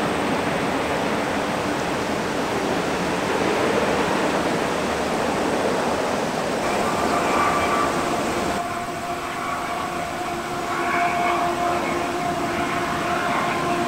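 Freight cars rolling across a steel trestle bridge: a steady rumble of wheels on rail. About two-thirds of the way through it cuts to the approaching lead diesel locomotives of another freight train, whose engines give a steady hum with several held tones.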